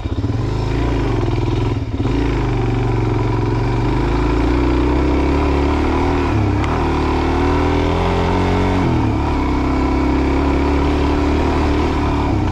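Suzuki DR-Z400 single-cylinder dual-sport motorcycle engine pulling under load up a very steep dirt climb. The revs rise and fall with the throttle, with a brief dip about two seconds in.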